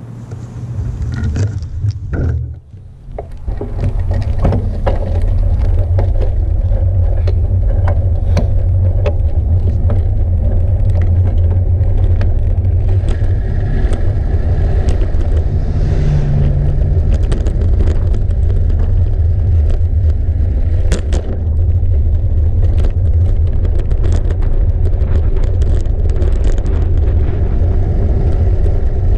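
Wind rumbling on a handlebar-mounted camera's microphone during a ride, building over the first few seconds and then holding steady. Scattered rattles and clicks come through as the bike jolts over cracked pavement.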